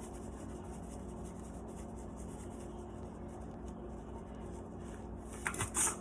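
Faint scratchy rubbing over a steady low room hum, then a few short clicking, rattling handling sounds near the end.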